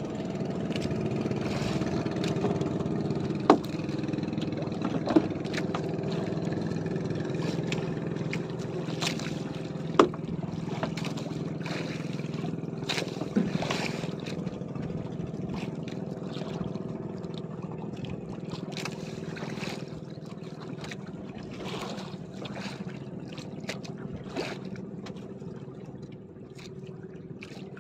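Small outrigger fishing boat's engine idling steadily, fading slightly toward the end. A few sharp knocks and clicks land over it, the loudest about three and a half, five and ten seconds in.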